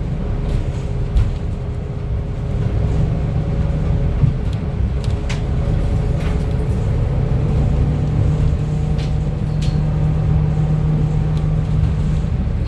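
Interior of a CNG-powered Gillig transit bus under way: steady low engine and road rumble, with a droning tone that comes in about three seconds in and holds until near the end. A few light rattles and clicks are heard.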